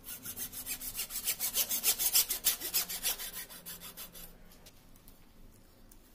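Hacksaw cutting through a PVC water pipe in quick, even back-and-forth strokes, loudest in the middle and stopping about four seconds in.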